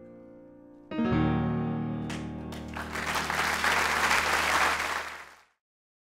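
Grand piano with its last notes fading, then a full final chord struck about a second in and left to ring. Audience applause rises over it from about two seconds in and cuts off suddenly near the end.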